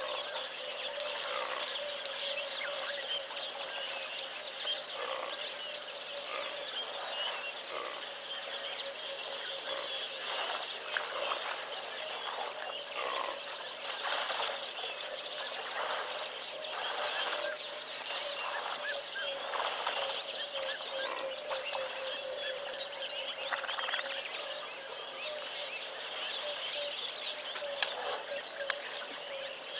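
Many small birds chirping and calling over one another, over a steady hum.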